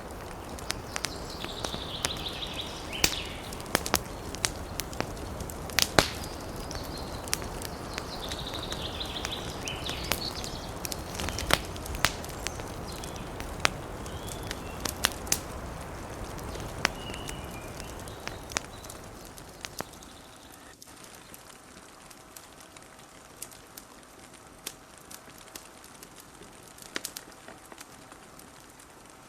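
Wood fire crackling with frequent sharp pops over a steady hiss of wind, with a few faint high squeals in the first half. About two-thirds of the way through the background noise drops away, leaving quieter scattered crackles.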